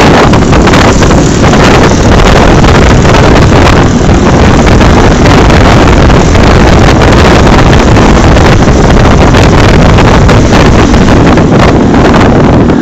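Loud, steady wind rushing over the microphone of a phone carried on a moving motorcycle, with the motorcycle's engine running underneath.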